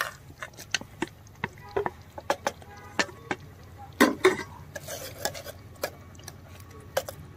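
Metal spoon clinking and scraping against metal, as boiled potato pieces are pushed off a steel plate into a metal pot and stirred into the gravy. Irregular taps and scrapes, the loudest about four seconds in.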